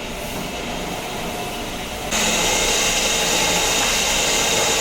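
Motorized cable reel of a sewer inspection camera running to wind cable onto its drum. About two seconds in, the sound jumps suddenly louder into a steady machine whine with many high tones.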